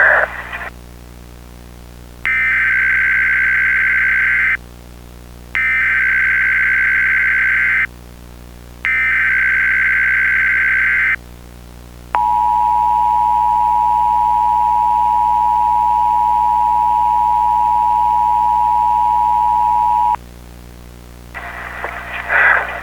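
Three bursts of Emergency Alert System SAME header data tones, each a harsh warbling screech about two seconds long, followed by the EAS two-tone attention signal held for about eight seconds and then cut off suddenly. A faint steady low hum runs underneath.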